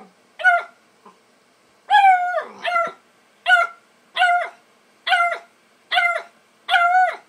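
Bluetick coonhound puppy barking: a string of about eight short, high barks, roughly one a second, each dropping in pitch at its end.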